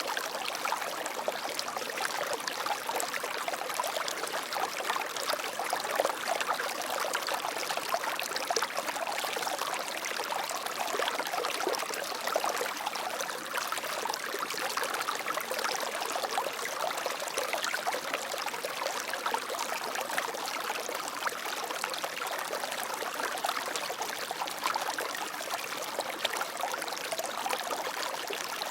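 Flowing water running steadily, a constant rush with fine splashing and trickling throughout.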